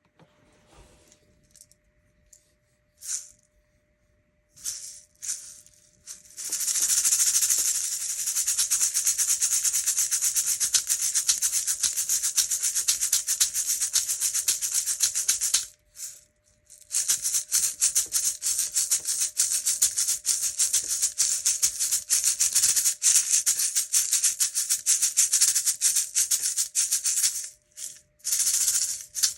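Amazonian hand rattle being shaken. It starts with a few single shakes, then rapid continuous shaking for about nine seconds, a short pause, another long run of shaking of about ten seconds, and one brief shake near the end.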